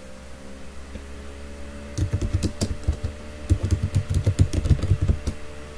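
Typing on a computer keyboard: a quick run of key clicks starting about two seconds in and stopping shortly before the end, over a faint steady hum.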